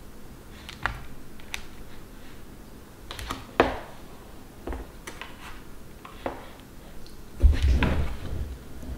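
A metal fork clicking and tapping against a plastic food container while it turns bread slices soaking in egg mixture, a few sharp ticks spread out. Near the end the plastic container is moved on a wooden counter, making a louder low knock and shuffle.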